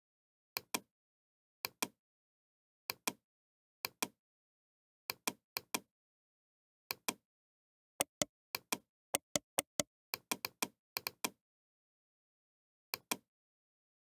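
Computer mouse button clicks, each a short sharp press-and-release pair, about once a second, with a quicker run of clicks in the second half and dead silence between.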